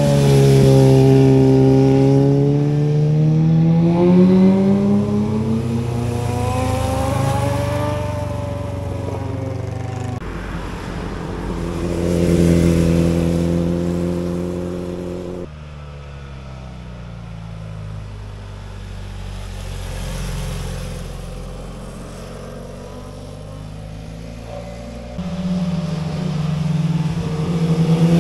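Sport motorcycle engines passing through a hairpin bend: the pitch drops as the rider rolls off into the corner, then climbs as the bike accelerates out. Several separate passes follow one another, with the sound changing abruptly about ten, fifteen and twenty-five seconds in.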